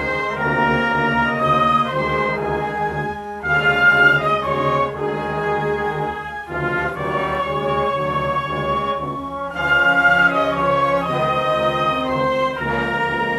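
Brass-led orchestral music playing held chords in phrases, with short breaks between phrases about three and a half, six and a half and nine and a half seconds in.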